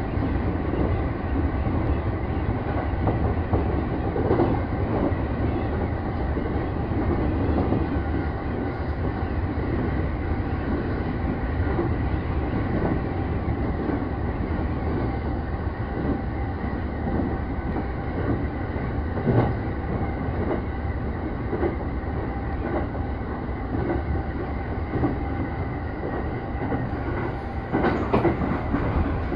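Electric commuter train running at speed, heard from inside the driver's cab: a steady rumble with a faint steady whine and scattered clacks of the wheels over the rails. Near the end the clacks come louder and closer together.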